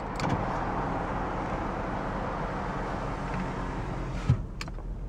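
Power window motor in a 1993 Cadillac Sedan DeVille door running steadily for about four seconds, then stopping with a knock. Underneath, the car's 4.9-litre V8 idles with a low hum.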